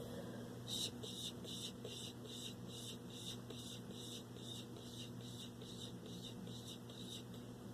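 Rapid breathy mouth sounds close to the microphone: short hissing puffs, about three a second, starting just under a second in and stopping near the end. A low steady electrical hum runs underneath.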